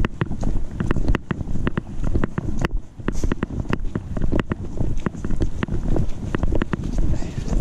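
Walking with a GoPro clipped to a backpack chest strap: the camera jolts with each step, giving a low rumbling handling noise and wind on the microphone, broken by frequent sharp clicks and knocks.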